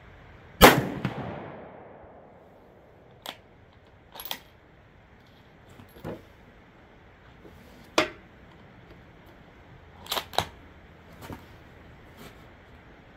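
A single .223 Remington rifle shot from a Savage Axis XP bolt-action, its echo dying away over about a second. After it comes a string of short, sharp metallic clicks spread over the following seconds as the bolt is worked to eject the spent case and chamber the next round.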